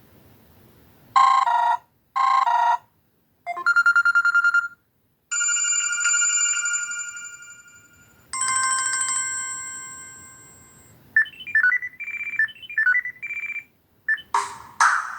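Samsung Galaxy Ace 2 ringtones played one after another: two short buzzy tones, a quick run of pulsing beeps, two long chime chords that slowly fade, then a short melody of separate notes. A fuller, busier ringtone starts near the end.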